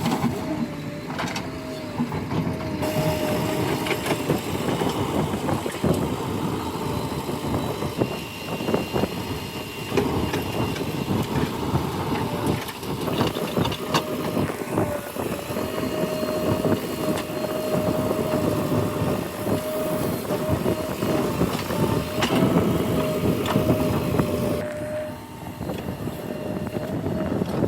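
JCB 3DX backhoe loader's diesel engine running under load with a steady whine, amid irregular scraping and knocking of the bucket working soil.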